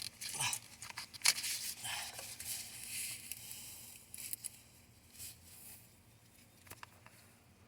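Clicks, scrapes and rustling of a rubber fuel hose being worked onto its fitting by hand, busiest in the first few seconds and then fainter.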